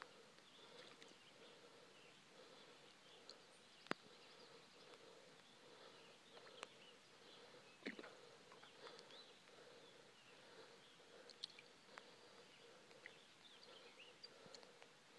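Near silence: faint outdoor ambience with a soft, steady, gently pulsing hum, a few faint high chirps, and several sharp clicks, the loudest about four seconds in.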